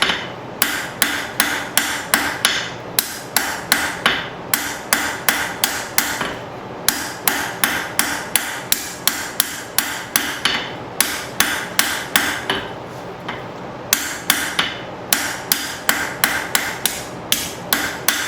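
Blacksmith's hand hammer planishing a hot mild-steel taper on an anvil: quick, even ringing blows, about three a second, with a pause about two-thirds of the way through.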